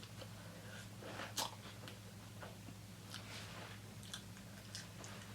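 Close-miked mouth sounds of someone chewing a bite of cheesesteak sandwich: faint wet smacks and clicks, a sharper one about a second and a half in, over a steady low hum.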